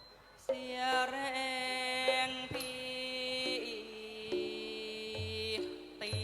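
Thai classical ensemble music playing a thao-form piece, with held, gently bending melody notes. It starts from a brief near-lull and comes back in about half a second in.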